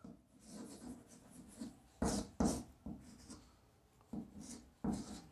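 Chalk writing on a blackboard: short scratches and taps of the chalk stick as letters are written, with a few louder strokes about two seconds in and near the end.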